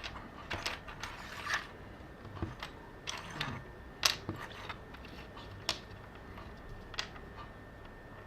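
Loose plastic keycaps from a Compaq MX11800 keyboard clicking and tapping against one another and a hard surface as they are handled and set upright, in a string of irregular clicks about one a second.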